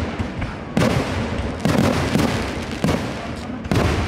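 Fireworks display: aerial shells bursting in a rapid, overlapping barrage, with dense crackling and a fresh loud bang roughly every second.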